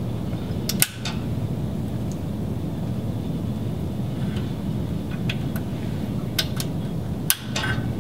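Small plastic clicks and taps of MPO fiber connectors being handled and seated in a fiber chassis blade, scattered over a steady low hum. One click about a second in, a cluster of clicks in the last few seconds.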